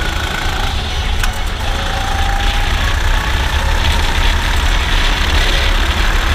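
Go-kart engine running under way, heard from on board the kart, over a strong, uneven low rumble.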